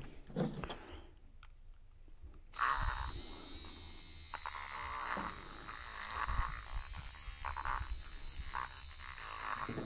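Small battery-powered handheld mini mixer switching on about two and a half seconds in and whirring steadily with a high whine as it stirs e-liquid in a bottle.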